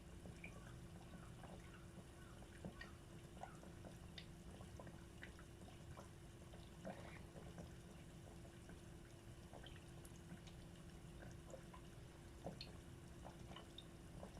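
Croquettes deep-frying in oil in a tempura pot: faint, scattered small pops and crackles over a low steady hum.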